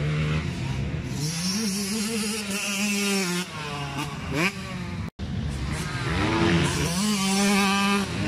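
Two-stroke motocross bike engine running hard, its pitch climbing and dropping several times as the rider works the throttle. The sound cuts out abruptly for an instant about five seconds in, then carries on.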